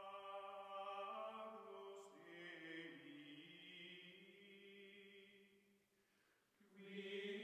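Faint, slow outro music of long held, choir-like chanting tones. It fades away around the sixth second, then a new held chord starts.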